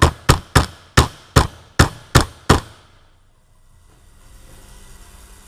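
A regular series of sharp knocks or taps, about three a second, that stops about two and a half seconds in, leaving a faint steady background hum.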